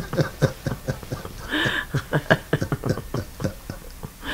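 People laughing in a quick run of short chuckles, with a breathy burst about one and a half seconds in.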